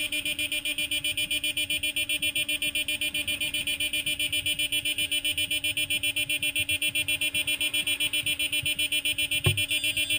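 Cicadas buzzing in the pine trees, an even pulsing drone at about seven pulses a second. One sharp thump comes about nine and a half seconds in.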